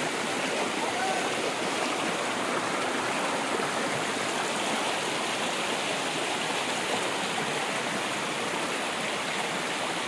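Shallow rocky stream running and splashing over stones: a steady rush of water.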